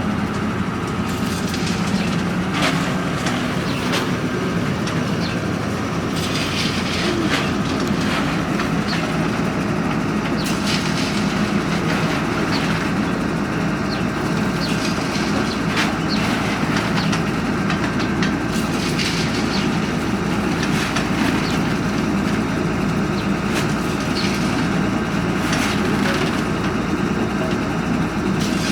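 Borehole drilling rig's engine running steadily, with short knocks and clanks scattered through it as the drill rods are handled.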